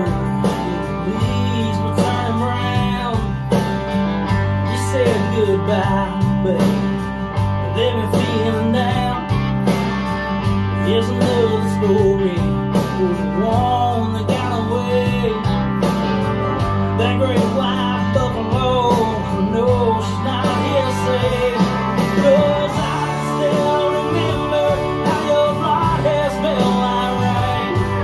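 A song with singing and plucked guitar, playing loud through a hi-fi system of planar-magnetic main panels and subwoofer towers. The subwoofers are crossed over at 80 Hz with a 24 dB Linkwitz-Riley slope. Steady bass notes sit under the vocal line.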